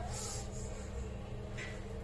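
OOKAS ceiling exhaust fan running with a steady low hum. Two short breathy hisses, one at the start and one about one and a half seconds in, are cigarette smoke being blown toward the grille to test its draw.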